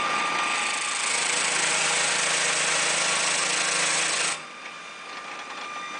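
Contec CT250 concrete grinder/planer running, a loud, harsh, steady noise with a thin high whine in it; about four seconds in the noise drops sharply to a lower, quieter running sound.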